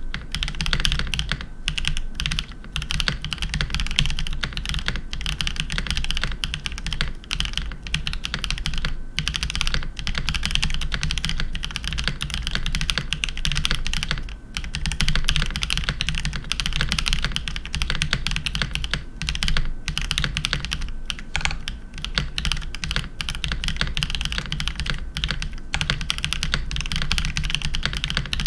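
Keychron V1 mechanical keyboard with lubed Aflion Tropical Waters v2 linear switches and lubed Keychron stabilisers, typed on continuously in a fast stream of key clacks with only brief pauses.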